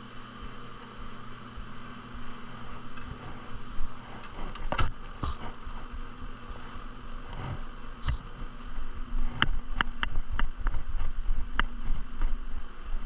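Steady machine hum in a woodworking shop, with a string of sharp knocks and clicks starting about four seconds in, typical of wooden pieces being handled and set down.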